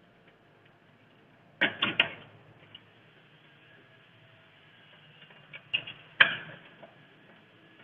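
Sharp plastic-and-metal clicks and taps from hands working on contactors and wiring in an electrical motor control panel: three quick clicks about one and a half seconds in, then a few more near the end, the last the loudest.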